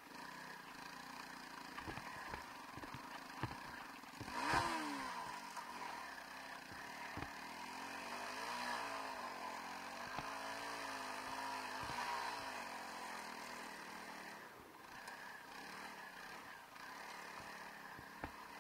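Honda CRF300L Rally's single-cylinder four-stroke engine being ridden, its revs rising and falling, with scattered short knocks. The loudest moment is a sharp burst about four and a half seconds in, followed by the revs dropping.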